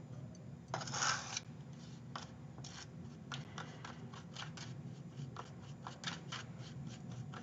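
Paste of crushed dry clay and Amaco Bisque Fix being stirred and scraped in a disposable cup: a longer scrape about a second in, then a run of short, irregular scrapes.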